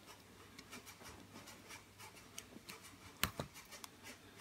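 Faint rubbing and small clicks of pliers and fingers handling the stripped wire ends of a cut lighting cable, with one sharper click about three seconds in.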